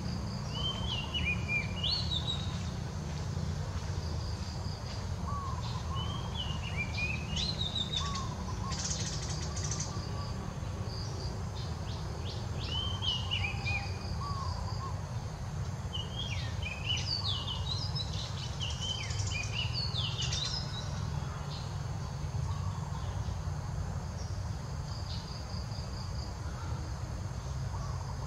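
Birds calling in short, quick whistled phrases that rise and fall, repeated every few seconds and dying away about two-thirds of the way through, over a faint steady insect drone and a steady low rumble.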